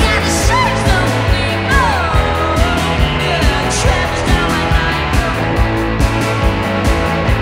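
Live rock band playing, electric guitars over a steady drum beat.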